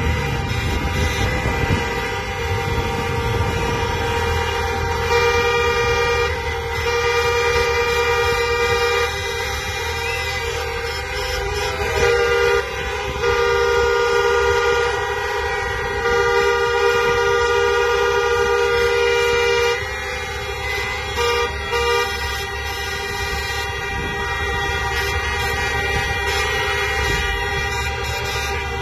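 Many car and truck horns honking at once in a show of support: long held blasts overlapping one another, with runs of short repeated toots, over a low rumble of vehicles.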